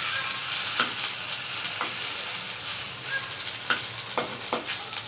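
Chicken kheema rolls sizzling in shallow oil in a kadai, with a steady hiss. A slotted spatula scrapes and knocks against the pan several times as the rolls are turned.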